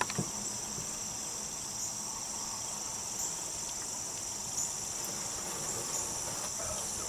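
Steady, high-pitched drone of a forest insect chorus, running without a break, with a faint snap near the start.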